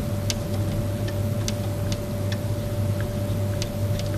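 Marker pen writing on a whiteboard: short, irregular ticks and taps of the pen strokes over a steady electrical hum.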